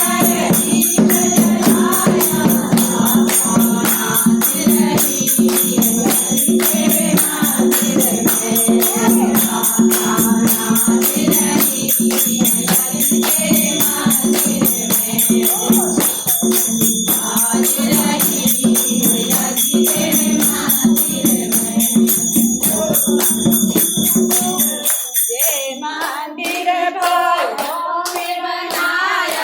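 Devotional temple music: group singing over a steady held drone, with dense high shimmer and frequent percussive strokes. About 25 seconds in, the drone and shimmer stop and the singing goes on alone.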